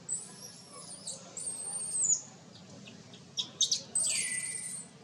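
Baby monkey squealing: three long, high-pitched, wavering squeals, the last about four seconds in, with a few short squeaks just before it.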